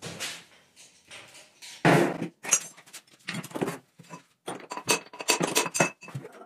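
Metal engine parts and tools clanking and clinking: a few separate knocks, then a quick run of ringing metallic clinks near the end.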